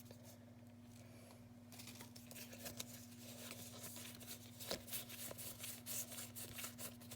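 Foil Pokémon booster pack wrapper crinkling and tearing open, starting about two seconds in. The crackling rustle of the foil grows busier towards the end, over a steady low electrical hum.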